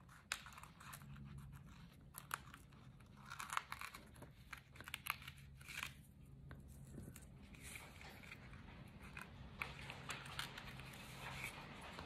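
Faint rustling, crinkling and light scraping of cardstock being handled, with scattered small taps, as small folded paper pieces are worked into a slit in a card, over a faint low hum.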